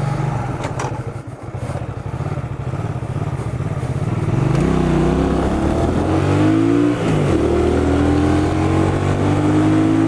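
Hyosung GV250 motorcycle's V-twin engine running at low revs, then pulling away a little less than halfway in. Its pitch climbs as it accelerates, drops at an upshift about two-thirds of the way through, and climbs again.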